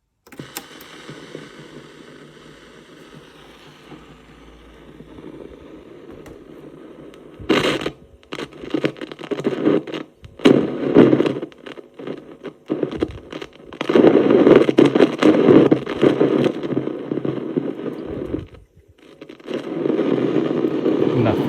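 Static hiss and crackle from a Radiocorder 4000 CS radio cassette recorder's loudspeaker while a cassette plays, with no sound from the tape: a sign the playback signal isn't getting through. The hiss is steady at first, then from about seven seconds in grows louder in crackly stretches that cut out briefly several times.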